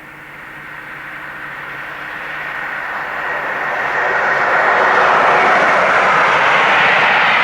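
An electric train approaching at speed on the main line, its rushing noise growing steadily louder for about five seconds and then staying loud as it draws level.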